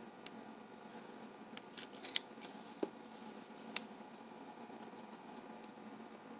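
Small sharp clicks and taps of padlock parts and tools being handled while re-keying a Sargent 758 padlock: about eight clicks in the first four seconds, two of them louder than the rest.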